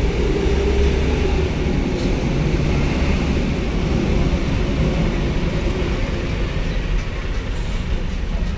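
Heavy trucks' engines running as the trucks drive slowly past at close range: a steady low rumble.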